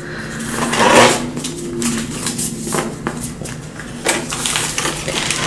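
Paper and plastic rustling and crinkling as sticker sheets and a planner in a clear plastic wrapper are handled, with the loudest swell about a second in. A faint steady hum runs underneath.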